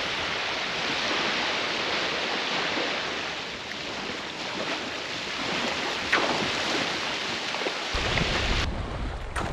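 Small waves lapping and washing onto a sandy beach. Wind buffets the microphone with a low rumble in the last second or so.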